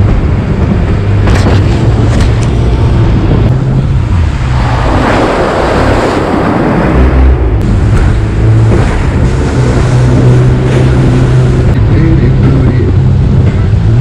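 Jet boat engine running hard under rushing whitewater and spray, a steady low drone. About four seconds in the engine note fades as a surge of water noise washes over, and it picks up again a few seconds later.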